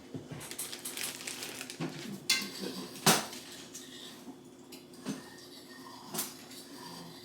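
Kitchen pans and utensils knocking and clinking while food is handled: a few scattered sharp knocks, the loudest about three seconds in, over a faint steady hum.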